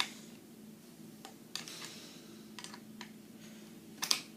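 Small wrench clicking and tapping against the nuts and bolts of a metal pull-up bar as they are tightened: a few scattered, irregular clicks, the loudest near the end.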